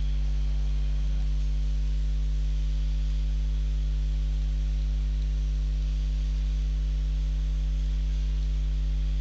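Steady electrical mains hum: a low, even drone with a stack of higher overtones that never changes in level.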